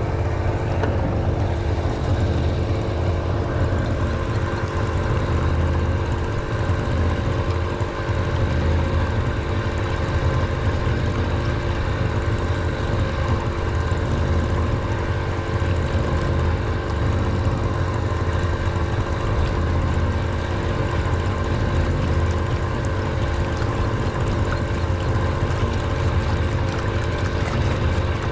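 An engine running steadily at constant speed: an unchanging drone with a low rumble and several steady tones above it.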